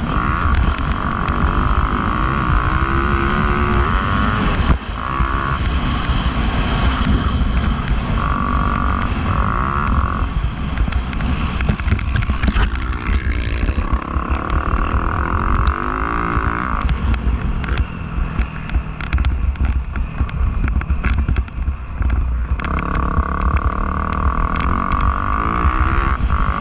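Motocross dirt bike engine on the throttle around a track, holding a high pitch for stretches of a few seconds about four times, each followed by a drop as the rider backs off, over a constant low rumble.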